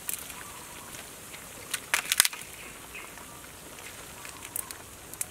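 A metal ladle clinks against a wide cooking pan of vegetable soup as ingredients are put in. There are a few sharp clicks, loudest in a quick cluster about two seconds in, over a soft steady hiss.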